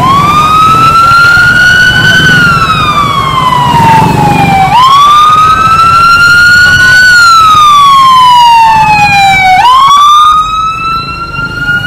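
Emergency vehicle siren wailing close by and loud: each cycle climbs quickly, then falls slowly, about three cycles in all.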